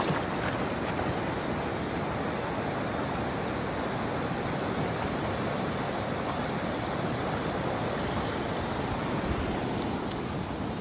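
Steady rush of flowing river water, an even noise that holds without change.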